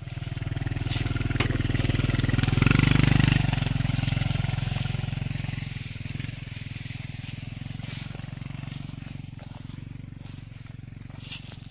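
An engine running steadily, swelling to its loudest about three seconds in, then slowly fading.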